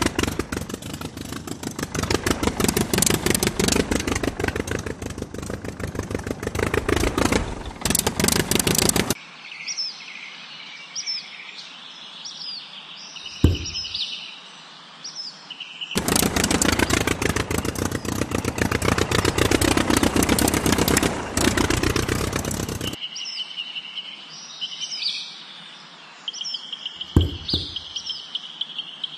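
Engine running with a rapid, even chug for the first nine seconds and again for about seven seconds in the middle. Between and after those stretches, birds chirp repeatedly over a quiet background, with a single knock twice.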